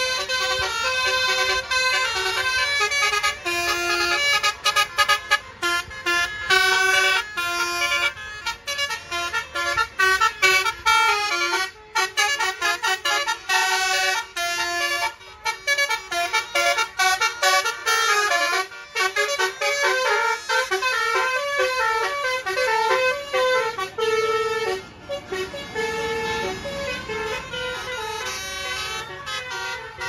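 Tour buses' Basuri "telolet" horns playing fast melodies: short musical notes stepping up and down in pitch several times a second. In the last few seconds the notes are held longer.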